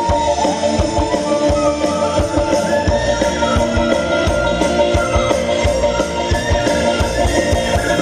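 Live band music with guitar, sustained held notes and a steady beat, played over a loud PA system.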